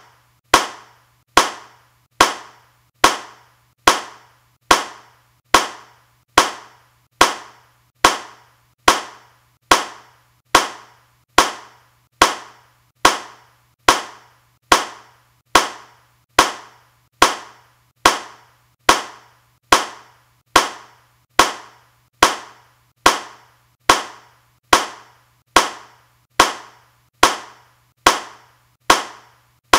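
A single hand clap repeated at an even pace, a little more than one a second, each clap sharp and dying away quickly.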